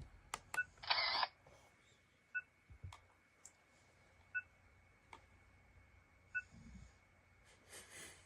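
Kids' instant-print digital camera being operated: button clicks, then a loud short shutter sound about a second in, followed by a soft double beep about every two seconds with a few more clicks. A faint steady high whine runs underneath.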